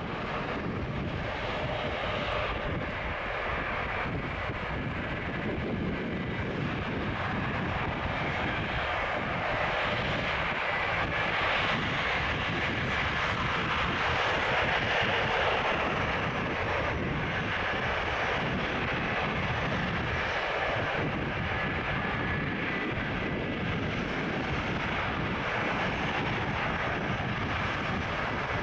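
Rear-mounted Pratt & Whitney JT8D turbofans of a McDonnell Douglas MD-87 running steadily at low taxi power, a constant jet rush with a faint steady whine that swells a little midway.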